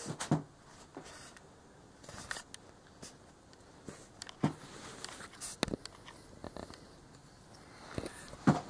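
Handling noise from a handheld camera: a few scattered soft knocks and rustles over quiet room tone.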